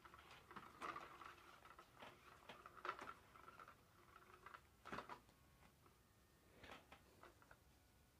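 SmartyKat Hot Pursuit cat toy running: a faint small-motor whir as the hidden wand sweeps under the nylon cover, with irregular scratchy rustles and ticks. A few louder rustles come about one, three and five seconds in.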